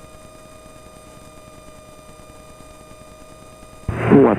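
Steady, faint cockpit drone of a turbo Bristell light-sport aircraft heard through the headset intercom, with its engine and propeller at reduced power on the approach, plus a thin steady whine. Near the end another pilot's radio call starts over the headset.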